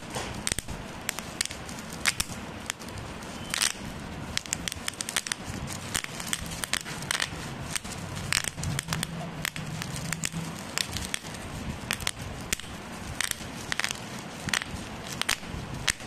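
Bubble wrap squeezed and twisted by hand, its bubbles popping in irregular sharp snaps over the crinkling of the plastic.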